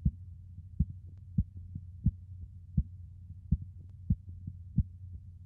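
Korotkoff sounds heard through a stethoscope below a deflating blood pressure cuff: sharp thumps with each pulse beat, about three every two seconds, over a low steady hum.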